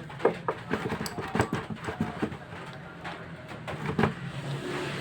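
Irregular metallic clinks and knocks of tools and engine parts being handled during motorcycle engine assembly, over a low steady engine hum.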